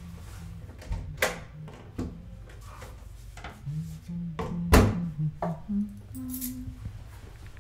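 Intro sound design: a steady low hum with several sharp swishing strikes, the loudest a little under five seconds in, and a few short low held notes that step upward in pitch near the end.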